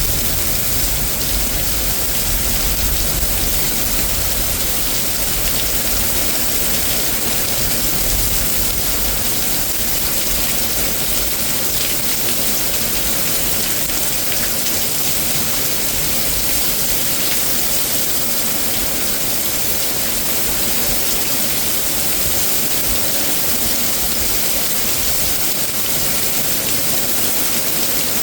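Heavy rain from a severe thunderstorm falling in a steady, loud hiss. A low rumble in the first few seconds fades away.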